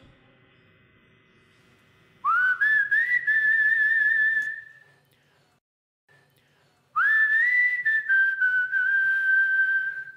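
Whistling: two long whistled notes, each sliding up into a held pitch with a slight waver. The second note drops a step lower partway through and holds there.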